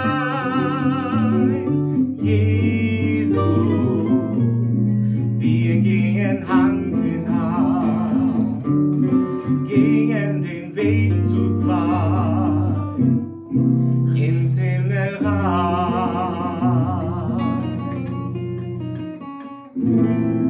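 A song: a voice singing with vibrato over acoustic guitar, with steady low accompanying notes.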